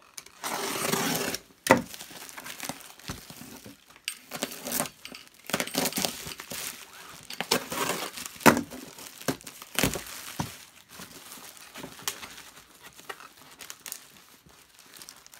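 Packaging crinkling and rustling as it is handled, with a steady rustle of about a second and a half near the start, then scattered clicks, knocks and short crinkles.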